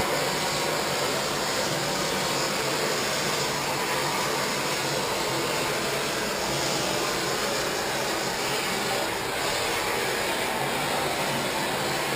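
Compressed-air equipment of a blacksmith's air hammer running with a steady rushing noise, even in level throughout, with no separate hammer blows standing out.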